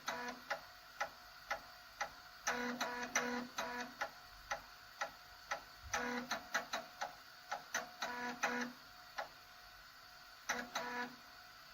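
3.5-inch floppy disk drive writing: the head's stepper motor buzzes in short pitched bursts in clusters as it seeks across tracks, with single clicks about twice a second between the clusters. The last cluster ends near the end.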